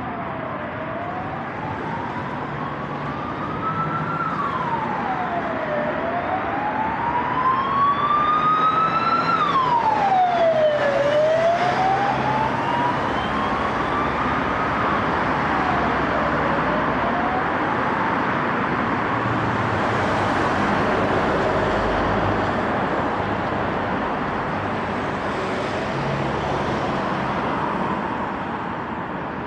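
An emergency vehicle's wailing siren, its pitch rising slowly and falling back three times, then fading away a little past halfway. Steady road traffic noise runs underneath.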